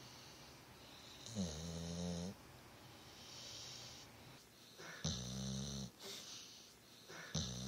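A sleeping pit bull–type dog snoring: three deep, rattly snores about a second long each, at roughly 1.5 s, 5 s and near the end, with softer breathy hisses between them.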